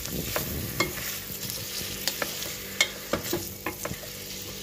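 Chopped sheep tripe and onion sizzling in hot oil in a stainless steel pot, stirred by hand, with a utensil clicking and scraping against the pot at irregular moments.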